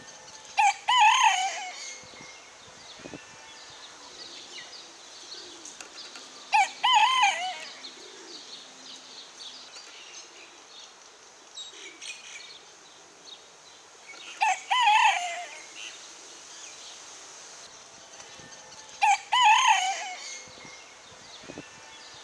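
Pekin bantam rooster crowing four times, several seconds apart, each crow a pitched cock-a-doodle-doo lasting about a second and a half.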